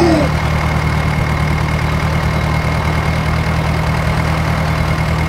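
Tractor engine idling steadily, a low even chugging hum.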